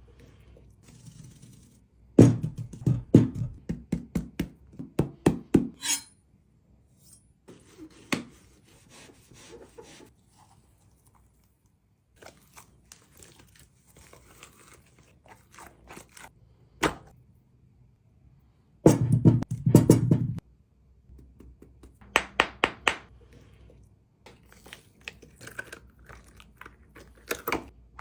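Hands working a squishy NeeDoh-type stress toy, with bursts of rapid dull thuds and clicks and scattered single taps in between.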